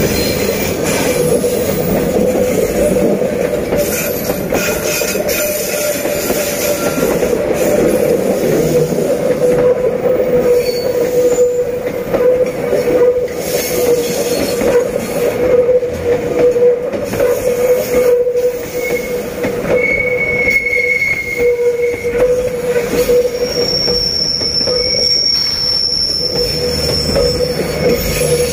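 Passenger train rolling past on a curve, its steel wheels squealing steadily against the rails over the rumble of the running gear. Briefer, higher-pitched squeals join in during the second half.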